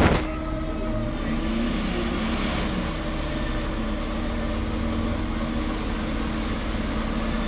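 Jeep Wrangler Rubicon stuck in a mud hole, its engine running with a steady drone.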